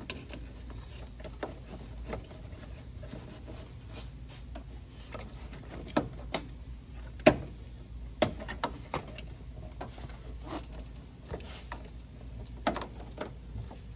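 Irregular clicks and knocks of hand work: an upper radiator brace being fitted and knocked into place on a car's radiator support, with a few sharper knocks about six to eight seconds in and again near the end.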